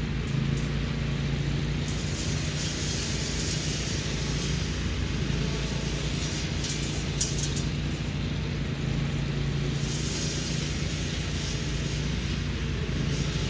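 An engine running steadily at a constant speed, a low even hum with no change in pitch.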